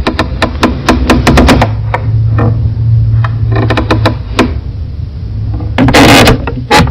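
Wooden floorboards creaking, made up of runs of sharp clicks and cracks with one longer drawn-out creak about six seconds in. It is heavily bass-boosted, with a strong low rumble underneath throughout.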